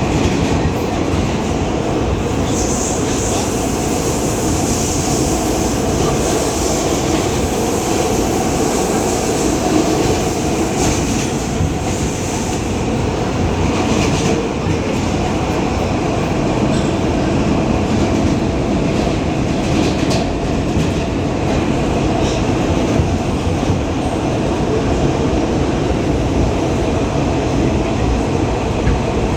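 New York City subway car running at speed, heard from inside: a steady loud rumble of wheels on track. A high-pitched sound rises over it a few seconds in and lasts about ten seconds.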